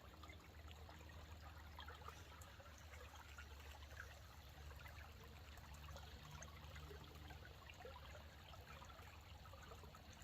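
Near silence: faint outdoor background with a low steady hum and a few faint ticks.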